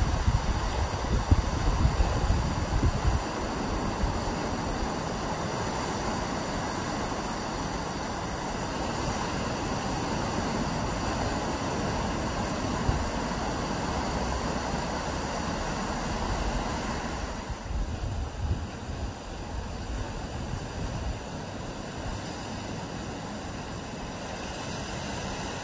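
Heavy surf of a rough sea breaking on a beach, a steady rushing noise. Wind gusts buffet the microphone in the first few seconds, and the sound becomes somewhat quieter about two-thirds of the way through.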